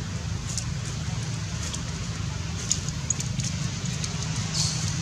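Outdoor ambience: a steady low rumble with scattered short crackles and ticks.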